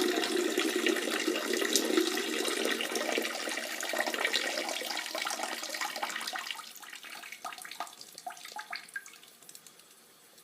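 Water running and splashing, which thins out over the last few seconds into scattered drips and dies away.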